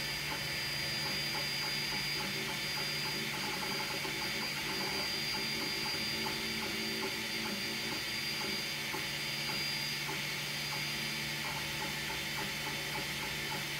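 FDM 3D printer printing: fans and stepper motors running with a steady hum and a high whine, and small ticks as the print head moves. The high whine fades about ten seconds in.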